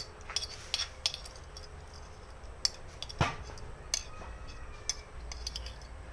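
Eating sounds during a noodle mukbang: scattered small clicks and clinks of utensils against a bowl, with one heavier knock about three seconds in.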